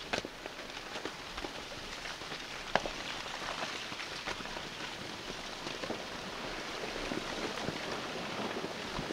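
Blocks and debris tumbling down the lava dome of Soputan volcano in a small lava avalanche: a steady crackling clatter of rock on rock, with sharp knocks, the loudest nearly three seconds in, slowly growing louder.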